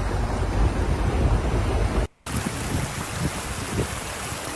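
Rushing floodwater with wind buffeting the microphone. The sound cuts out for an instant about two seconds in and comes back as a lighter, steady rush of water.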